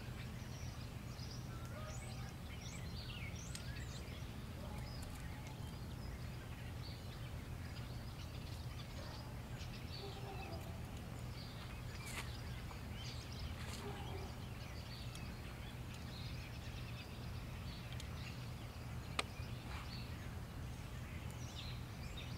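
Outdoor background of scattered bird chirps over a steady low rumble, with one sharp click near the end.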